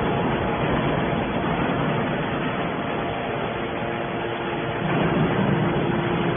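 Hydraulic scrap metal baler running: a steady machine noise with a faint hum from its pump.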